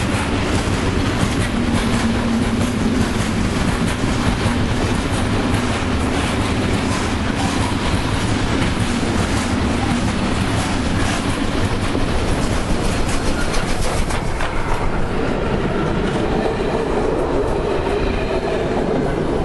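Freight train of hopper wagons rumbling and clattering past at close range, wheels clicking over the rail joints. About two thirds in, the sound shifts as the ČSD class 475.1 steam locomotive and its passenger coaches pass on the adjacent track.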